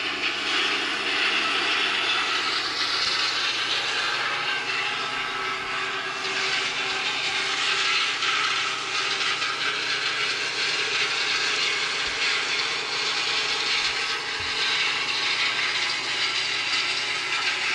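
New Holland TR99 twin-rotor combine running steadily while shelling corn with a 12-row corn head: an even, unbroken mechanical din with several steady hums.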